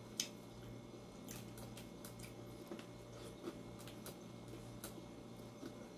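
Faint chewing and lip smacks with scattered small clicks as a man eats with his fingers from a plate, over a low steady hum.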